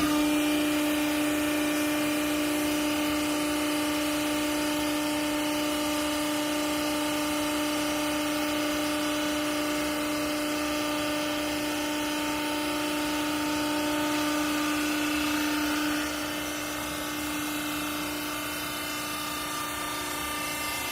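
Garment press baler's hydraulic power unit running, a steady pitched hum over machine noise that sets in abruptly and cuts out about 16 seconds in.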